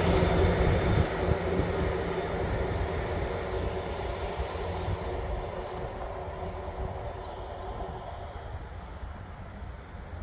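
EMR Regional diesel multiple unit moving away along the line, its engine and wheel rumble fading steadily as it recedes.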